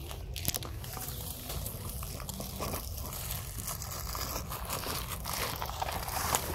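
Dry grass and dead leaves crackling and rustling as they are pushed aside and trodden through, in many small irregular crackles.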